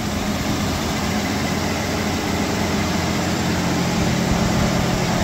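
1989 Mitsubishi Pajero's 3.0-litre V6 idling steadily on new stainless steel extractors, with no exhaust leak: the cracked, warped stock manifold that was leaking has been replaced.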